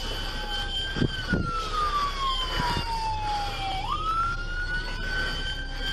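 Police car siren on a wail, its pitch falling slowly and then sweeping back up quickly about once every five seconds, heard from inside the pursuing car. A couple of short thumps come about a second in.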